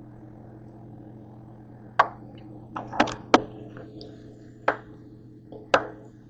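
About seven sharp knocks and clacks of things being handled and set down on a kitchen counter, spread over the middle seconds, over a steady low hum.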